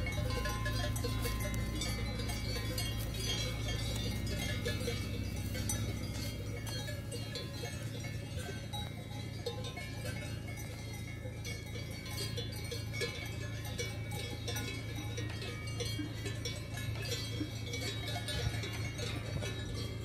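Cowbells on grazing cattle clanking and ringing irregularly, over a steady low hum.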